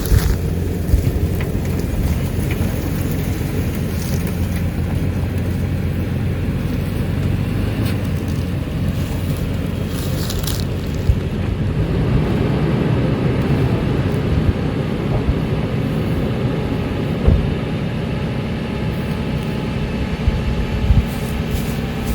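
A vehicle engine running steadily with a low hum, with a few scattered short knocks.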